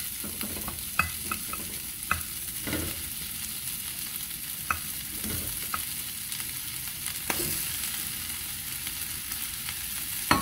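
Butter and oil sizzling steadily in a frying pan as sliced zucchini is dropped in by hand, with scattered light clicks and clatters of the slices landing in the pan.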